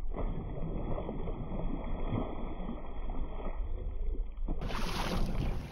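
Wind buffeting the microphone over choppy open water, a steady noisy rumble that sounds muffled until near the end, when it turns brighter and hissier.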